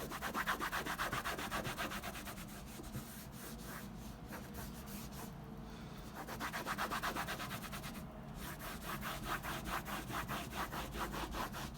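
A small brush scrubbing cleaning cream into the textured surface of a Louis Vuitton trunk, in rapid back-and-forth strokes with a couple of brief pauses, working the cream into the small gaps of the grain.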